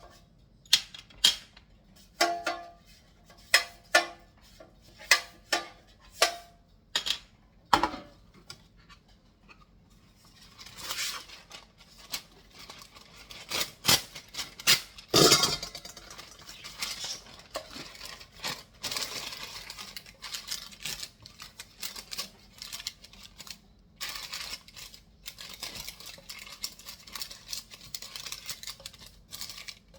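Kitchen utensils and dishes at work: about a dozen sharp clinks and knocks in the first eight seconds, some with a short ringing tone, then irregular scraping and rustling with smaller knocks.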